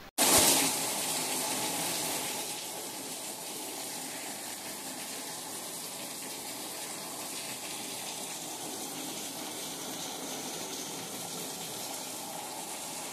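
Heavy rain pouring, with water streaming off a roof edge in a steady rush of noise. The rush is louder for the first couple of seconds, then holds even.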